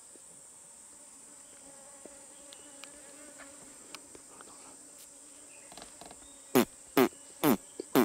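Insects drone steadily at a high pitch. Near the end come four loud, short calls or whistles, each sweeping sharply downward in pitch, about half a second apart.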